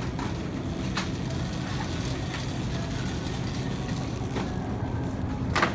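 Wire shopping cart rolling over a hard store floor: a steady low rumble from the wheels, with light rattles of the wire basket and a sharper clack near the end.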